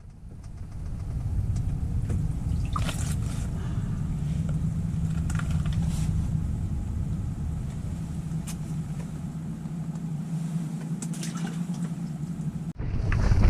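Strong wind buffeting the microphone on open ice: a deep, steady rumble with a low hum and a few faint clicks, ending suddenly near the end.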